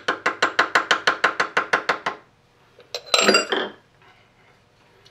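Rapid light hammer taps on a drift against the end gear of a Hendey cone head lathe spindle, about eight a second for two seconds, each with a short metallic ring, driving the keyed gear off the spindle. About a second later comes a brief ringing metallic clatter as the loosened gear is worked off by hand.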